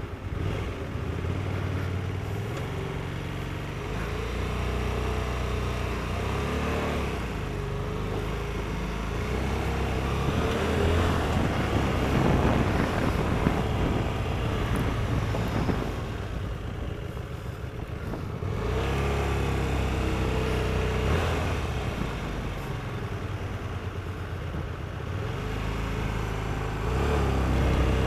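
Hyosung GT125R motorcycle's 125cc V-twin engine pulling away and riding, its note rising and falling several times as it goes up through the gears, heard from a helmet-mounted camera.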